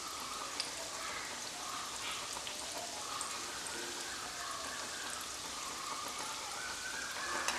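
Hot oil sizzling steadily around pieces of maida cake dough deep-frying in a pan over a low flame.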